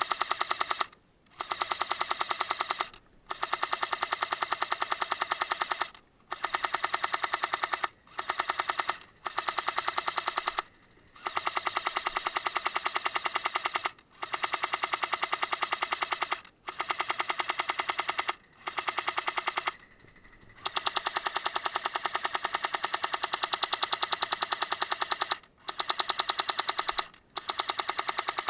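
Airsoft M60 support gun firing long full-auto bursts, a fast steady rattle of shots. The bursts are a second to several seconds long and are broken by brief pauses about a dozen times.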